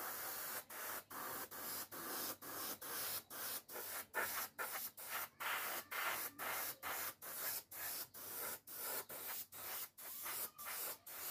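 Airbrush spraying thinned green model paint, a hiss of air and paint cut into short rapid bursts about three times a second.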